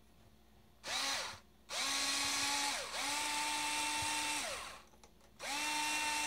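Handheld power drill/driver with a bit in the RC monster truck's front hub, run in four short bursts: each spins up to a steady whine and winds down again, the last still running at the end.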